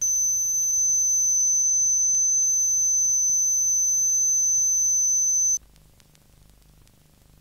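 Steady 6,000 cycles-per-second test tone from a vintage frequency-response calibration tape, played back on a Sony TC-350 reel-to-reel deck. It holds for about five and a half seconds, then cuts off, leaving faint tape hiss.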